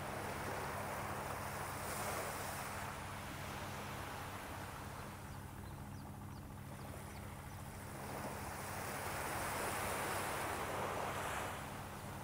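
Small waves washing up on a sandy beach, the wash swelling twice, with a steady low hum underneath.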